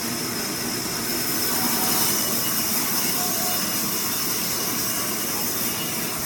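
Sawmill machinery running with a steady, hissing noise strongest in the high range, swelling slightly a couple of seconds in.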